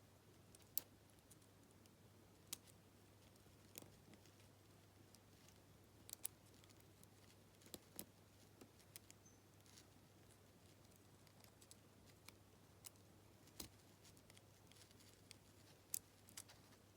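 Faint, irregular sharp clicks and taps of small metal lock parts as the plug of a Lockwood 225 wafer padlock is worked back into its body with the retaining wafer held down, about a dozen over the stretch, over a low steady hum.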